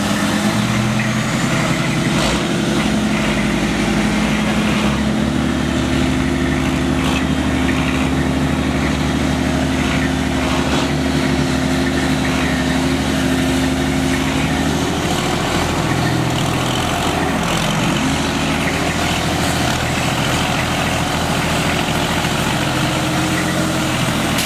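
Cummins 6.7-litre inline-six turbo diesel in a 2011 Dodge Ram pickup, revving and held under load as the truck strains against a tow strap. The engine note steps up about two seconds in and shifts in pitch a couple of times later on.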